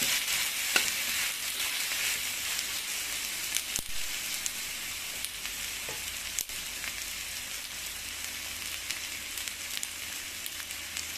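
Ground garlic, shallot and chili paste with sliced onion sizzling steadily in hot oil in a wok, being sautéed until fragrant. A few faint clicks sound through the sizzle.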